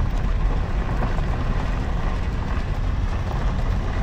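Steady low rumble of a car driving slowly over a sandy dirt track, pacing a cantering horse.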